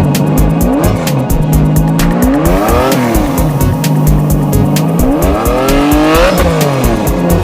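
Race-car engine sound effects over background music with a steady beat: the engine note rises and falls three times as cars pass, loudest around six seconds in.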